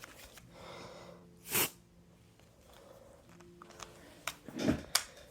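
Short puffs of hissing air as smoke is blown or sprayed into a smoke detector to test it: a faint breathy hiss, a brief sharp hiss about a second and a half in, and another breathy puff with a click near the end. No alarm goes off.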